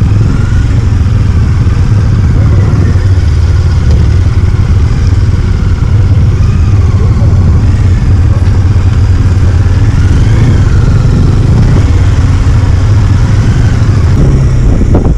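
Bajaj Dominar's single-cylinder motorcycle engine running steadily at low speed, heard from the rider's seat as a loud, even low rumble.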